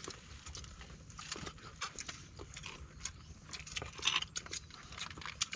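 Eating noises from a group eating with their hands: irregular small clicks and smacks of chewing and fingers picking at rice, fish and sea urchin shells, with a denser run of clicks about four seconds in.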